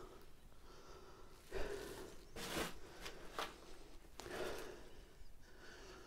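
A person breathing hard close to the microphone, short noisy breaths about once a second.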